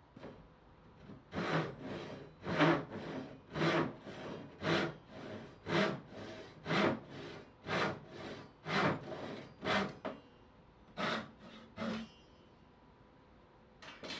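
Hand saw cutting through wood: about eleven strokes, roughly one a second, each louder cutting stroke followed by a quieter return stroke. The sawing stops about two seconds before the end.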